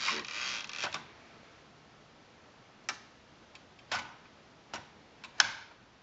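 Hermes Baby portable typewriter worked by hand: a second of rustling mechanical noise at the start, then four separate sharp clicks of its keys and type mechanism, spaced a second or so apart, the last one the loudest.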